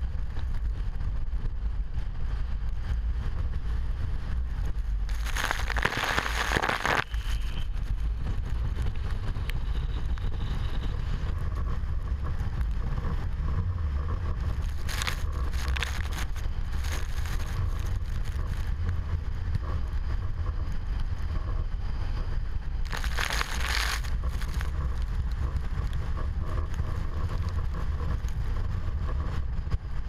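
Typhoon wind buffeting the microphone with a constant low rumble, and heavy surf breaking on the rocks. Three louder hissing washes of breaking waves and spray come about five, fifteen and twenty-three seconds in.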